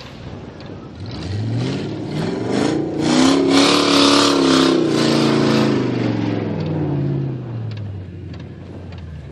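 Off-road vehicle engine revving hard. Its pitch climbs over about two seconds, holds loud for a few seconds, then winds down and fades.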